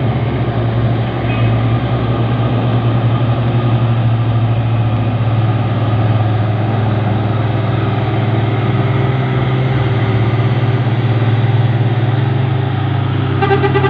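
Vehicle engines labouring up a steep hill in a loud, steady low drone under road and engine noise. A horn-like tone joins near the end.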